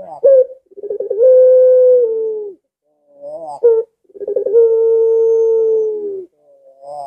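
Puter pelung, a white barbary dove, cooing twice: each time a quick stuttering run of rising notes breaks into a long, drawn-out held note of about two seconds, the second sagging in pitch as it ends. This is the long arching coo the breed is kept for.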